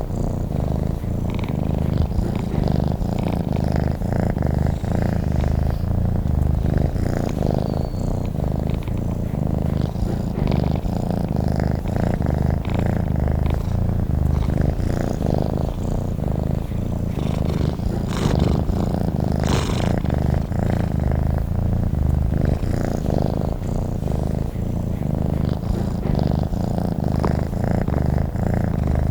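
Domestic cat purring steadily and continuously, a low, rapidly pulsing rumble, recorded close up.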